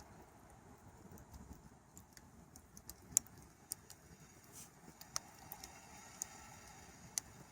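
Campfire crackling: irregular sharp pops and snaps over a faint steady hiss, the loudest pop about three seconds in.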